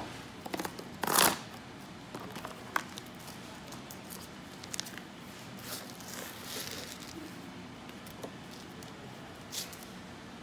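Paperboard bakery box being handled and a coffee cake on its cardboard round slid out of it across a granite countertop: scattered paper rustles and scrapes, the loudest about a second in, then a few smaller rustles and clicks.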